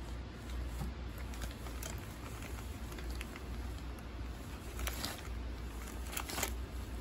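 Crumpled paper packing filler crackling and rustling as a cat rolls and rubs in it, with a few sharper crackles about five seconds in and again near the end, over a low steady rumble.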